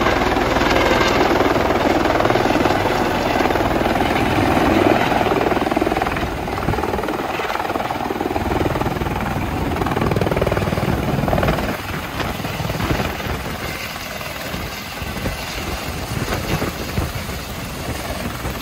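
Eurocopter EC130 single-turbine helicopter hovering and setting down, rotor and turbine loud at first, then lower and steadier once it is on the ground with the rotor still turning, from about twelve seconds in.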